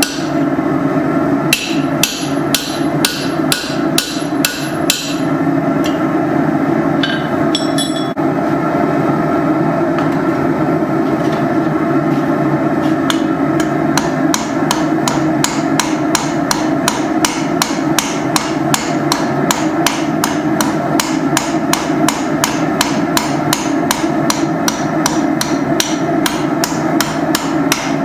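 Hand hammer beating hot iron railroad spikes: quick runs of sharp metal-on-metal blows, about three a second. There is a burst at the start, then a few scattered blows, then a steady run from about halfway on. A steady drone runs underneath.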